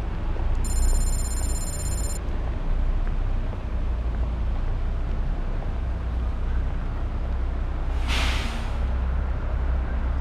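Steady low rumble of wind buffeting and street noise picked up by a moving GoPro Hero3+ camera. A thin high whine lasts about a second and a half near the start, and a short hiss comes about eight seconds in.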